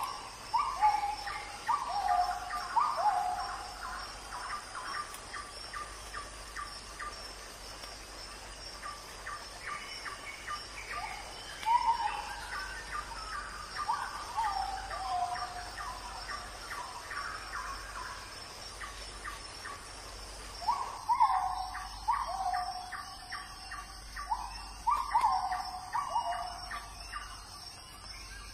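Birds calling: clusters of four or five short falling whistles, with quick ticking notes and a steady high hum behind them.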